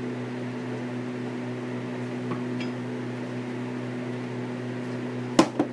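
Steady low mechanical hum. Near the end there is a sharp clatter as a frying pan is set down on the counter.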